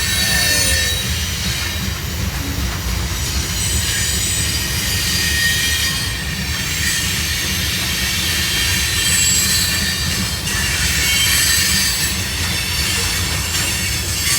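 CSX freight cars rolling past close by: a steady heavy rumble of wheels on rail with thin, high-pitched wheel squeal running over it. It is a noisy train.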